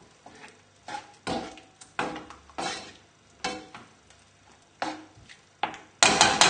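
A utensil knocking and scraping against a frying pan while chicken livers are stirred through a cream sauce: irregular knocks, about one every half-second to second, much louder in the last half-second.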